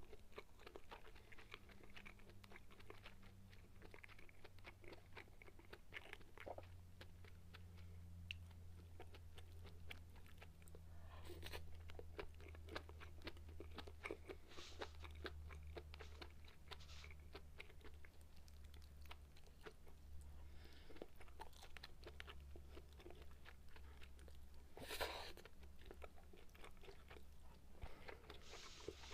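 Close-miked chewing of sukiyaki beef and vegetables: soft wet mouth sounds and many small clicks, with a louder click about 11 seconds in and another near 25 seconds, over a steady low hum.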